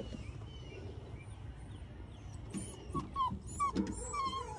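Anatolian Pyrenees puppy whimpering and yipping: a run of short, high calls, several falling in pitch, starting about halfway in.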